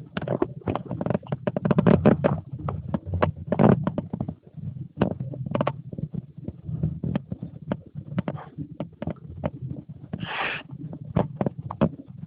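A dog tussling with a bolster pillow: a rapid, irregular run of thumps, knocks and scuffles, with a short breathy burst about ten seconds in.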